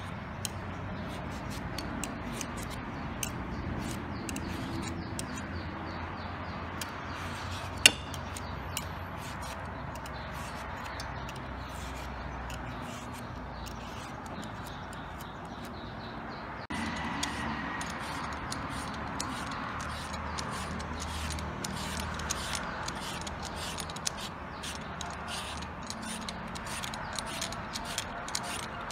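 Julienne peeler scraping down a firm yellow mango, shredding it into thin strips in many quick, repeated strokes. A single sharp click comes about eight seconds in.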